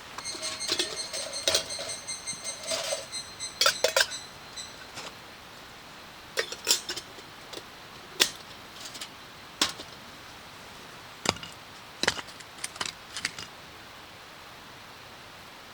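Metal camp gear being handled: clinks and taps with a bright metallic ringing for the first few seconds, then scattered clicks and knocks.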